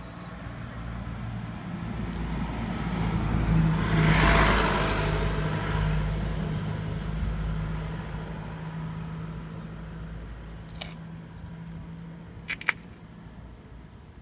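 Kubota diesel generator set running with a steady low hum. A louder rushing noise swells to a peak about four seconds in and slowly dies away. Two sharp clicks come close together near the end.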